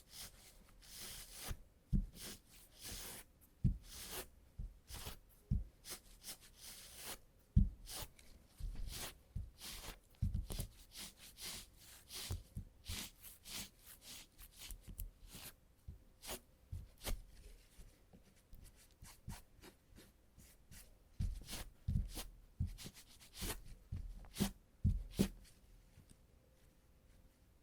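Sticky tape pressed onto trouser fabric and peeled off again and again to lift embedded cat hair: irregular crackling peels and scrapes with soft taps, dying down near the end.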